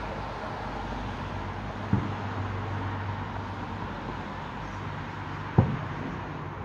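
Distant aerial firework shells bursting as dull booms, one about two seconds in and a louder one about five and a half seconds in, over steady city traffic noise and a low hum.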